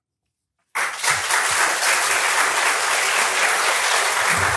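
Audience applauding, starting abruptly about a second in after a moment of silence and going on steadily.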